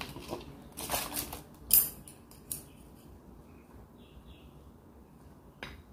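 Thin plastic bag crinkling in a few short rustles, the loudest about two seconds in, as the pickled cabbage is shaken out of it; then quieter handling with one more brief rustle near the end.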